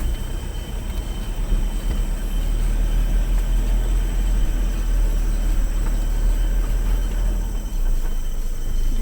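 Four-wheel-drive vehicle driving a rough, muddy track, with a steady low rumble of engine and road.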